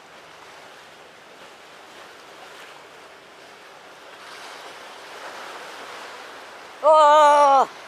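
Sea waves washing steadily against a rocky breakwater, with a little wind. Near the end a man lets out a short, loud, drawn-out exclamation.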